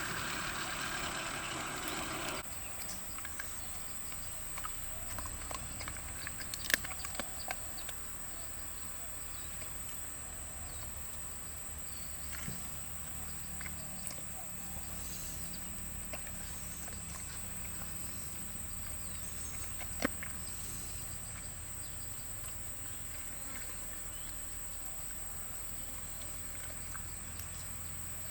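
Quiet outdoor background: a steady high-pitched whine over a low rumble, with scattered small clicks and knocks, the sharpest about seven seconds in and another about twenty seconds in. It is louder and noisier for the first couple of seconds.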